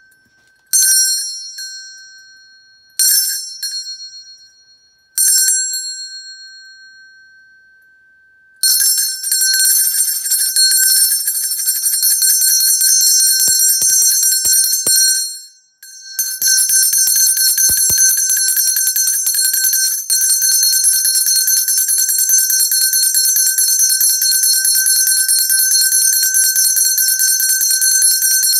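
Brass hand bell struck three times about two seconds apart, each stroke left to ring and fade, then shaken fast in a continuous jangling ring that breaks off for a moment about halfway through and starts again.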